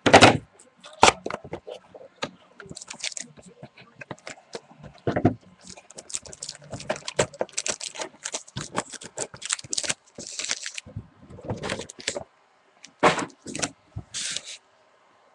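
Trading-card box packaging being opened and handled by hand: a quick run of scrapes, crinkles and clicks of cardboard and wrapper, with the sharpest knocks at the start, about a second in, and again near the end.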